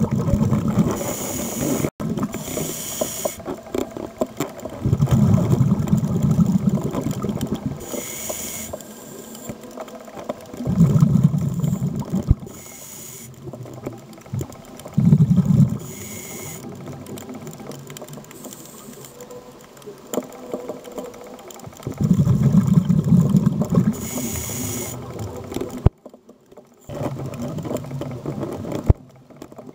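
Scuba diver breathing through a regulator underwater. Low bubbling rumbles of each exhale alternate with shorter hissing inhales, a breath every few seconds.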